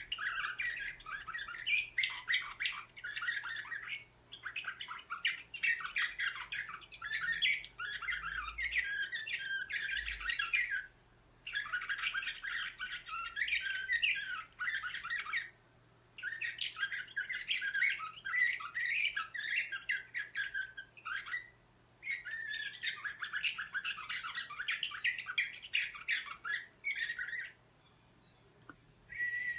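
Slavujar song canary singing in its cage: long phrases of rapid chirps and trills, each lasting several seconds, broken by short pauses.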